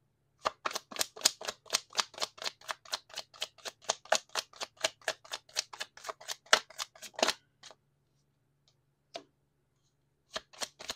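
A deck of tarot cards being shuffled by hand: a fast run of crisp card clicks, about five a second, that stops about 7 seconds in, with a single click a little later and the shuffling starting again near the end.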